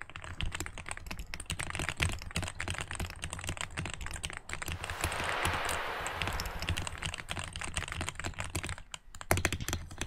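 Continuous fast typing on a 65% mechanical keyboard fitted with GMK Red Samurai keycaps: a dense, uneven stream of key clicks and clacks, thickening into an almost unbroken patter around the middle.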